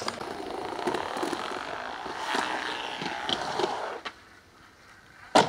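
Skateboard wheels rolling and grinding across a wooden vert ramp, with small knocks, for about four seconds. Then it goes quiet for over a second, and near the end there is one loud, sharp slap of the board landing on the wood.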